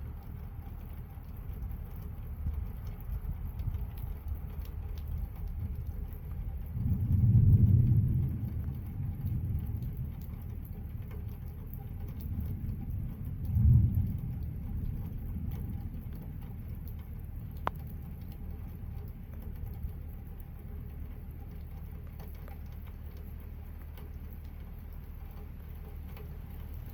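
Distant thunder rumbling twice, a longer roll about seven seconds in and a shorter one about halfway through, over a steady light patter of rain and dripping.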